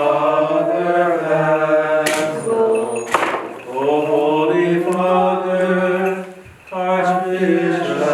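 Byzantine liturgical chant sung on long held notes, the melody moving slowly, with two short breaks for breath.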